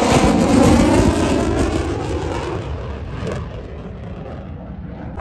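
F-35A Lightning II's single F135 afterburning turbofan engine roaring as the jet passes low overhead, fading steadily as it flies away.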